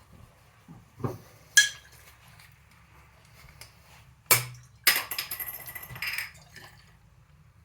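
Cutlery knocking and clinking against a plate: a few separate clinks, one with a dull thud, then a quick clatter of small knocks about five seconds in.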